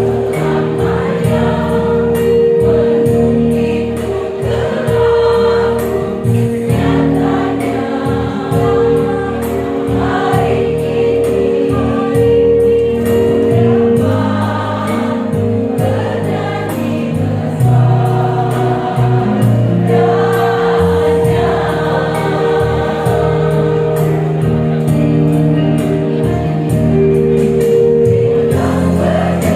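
Women's choir singing a song in several parts, with long-held notes.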